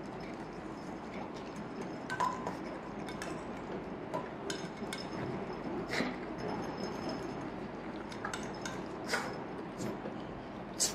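A stainless steel dog bowl clinking as a pug eats from it: about five sharp metallic clinks, some ringing briefly, the loudest near the end, over a steady background hiss.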